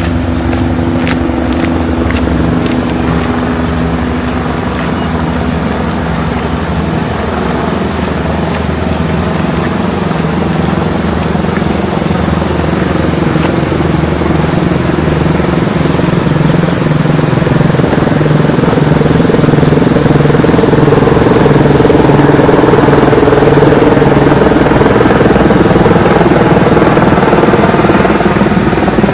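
A motor engine running steadily, with a hum of several steady tones that shift pitch a couple of times. It grows louder over the middle of the stretch, then eases slightly near the end.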